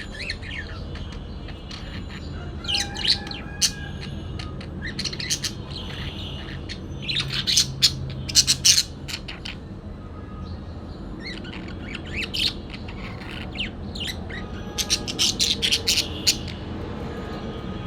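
Parakeet chirping in several clusters of quick, high calls, with short pauses between them, over a steady low hum.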